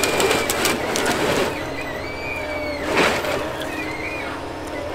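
Ponsse Scorpion King forest harvester working, its diesel engine running steadily under a thin hydraulic whine that rises and falls. The harvester head grips and cuts a spruce stem, with cracking of wood and breaking branches in the first second and a half and the loudest crack about three seconds in.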